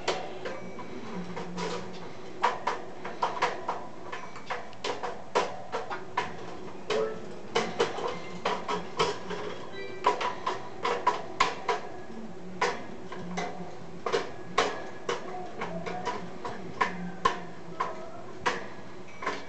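A budgerigar knocking and rattling a clothes peg against the wire bars of a cage: irregular sharp clicks and taps, sometimes several a second in quick runs.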